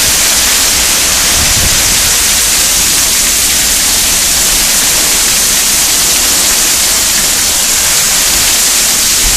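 Heavy tropical-storm rain pouring steadily onto a swimming pool and paved deck: a loud, even hiss.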